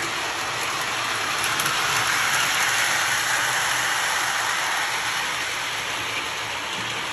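Lionel O scale model train running on the layout's track: a steady rushing rumble of wheels and motor that grows louder in the middle and then eases off as the cars pass close by.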